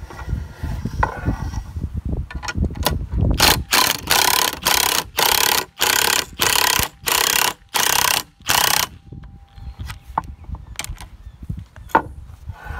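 A hand ratchet wrench clicking through about nine quick strokes, each a short burst of ratcheting, as it turns the threaded rod of a coil-spring compressor on a car strut. Loose clicks and knocks of the tool and compressor follow.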